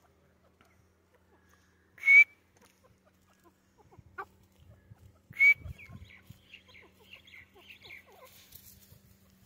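Female grey francolin calling: two short, sharp, loud calls about three seconds apart, followed by a run of soft, quick chirping notes.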